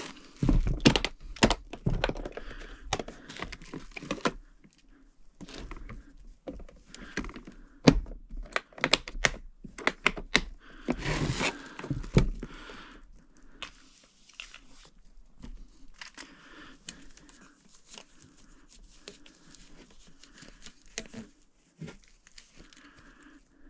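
Irregular clicks, knocks and rustling of tools and equipment being handled, busiest in the first half and quieter after about thirteen seconds.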